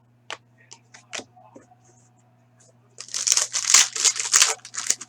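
A few light clicks of cards being handled, then about two seconds of loud crinkling and tearing as a foil trading-card pack wrapper is ripped open.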